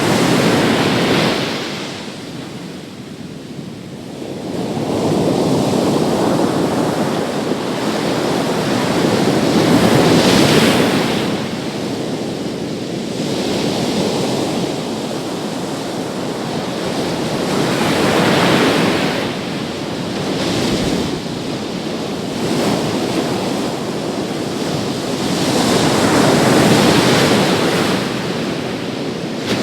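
Large sea waves breaking on a beach. The surf swells into a loud rush about every eight to ten seconds and falls back between, four crashes in all.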